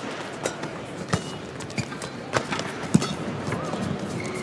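Badminton rally: rackets striking the shuttlecock in a quick exchange, sharp cracks every half second or so, mixed with players' footfalls and brief shoe squeaks on the court mat over a low arena hum.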